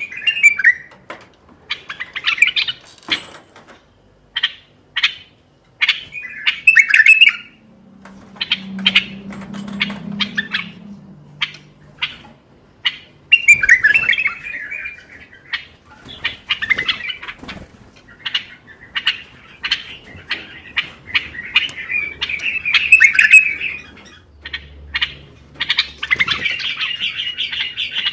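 Common bulbul singing: short, repeated warbling phrases broken up by sharp chirps, with a longer unbroken phrase near the end.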